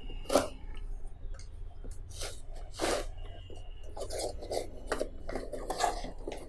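Cardboard shipping box being opened: a small blade slitting and scraping along packing tape, the tape peeling and the cardboard rustling as the box is handled, in irregular short bursts.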